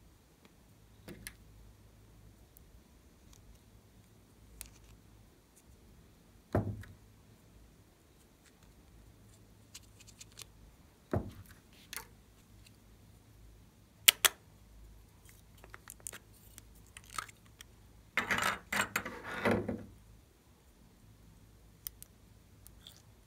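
Hands handling small plastic toy moulds and clay pieces over a tray of slime: scattered plastic clicks and taps, two dull thuds about six and eleven seconds in, and a rustle lasting about two seconds near the end.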